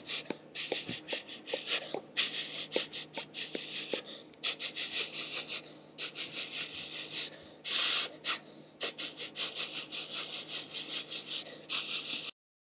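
Rapid runs of short, breathy puffs of air with no pitch: a voice making the unvoiced phonics sound of the letter 'p' over and over. The puffs cut off suddenly near the end.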